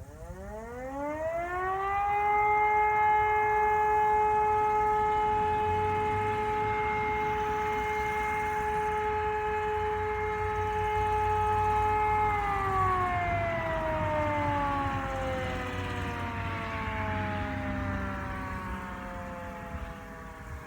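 Civil defence warning siren sounding its monthly test alarm: it winds up over about two seconds to a steady tone, holds it for about ten seconds, then winds slowly down in pitch.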